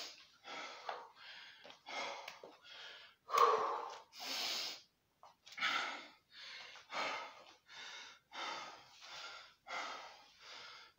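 A man breathing hard and fast from the exertion of burpees, short heavy breaths in and out about one and a half a second, with one louder gasp about three and a half seconds in.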